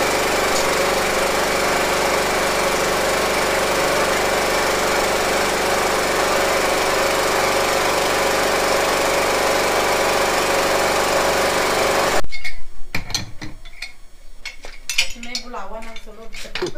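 Small engine-driven water pump running steadily, pumping water down the well pipe to flush out the sand that clogged it. The pump stops abruptly about twelve seconds in. A few sharp metal knocks and a voice follow.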